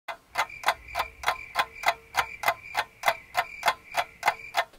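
Clock-ticking sound effect: a quick, even tick-tock, about three or four ticks a second, used as a countdown while an answer is awaited.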